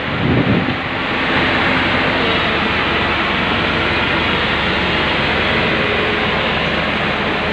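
Kaiser spider excavator's engine running steadily under load as its boom and bucket dig soil.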